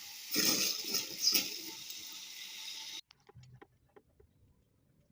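Steady hiss of rushing water, louder and rougher for about a second near the start, cutting off abruptly about three seconds in; faint clicks follow.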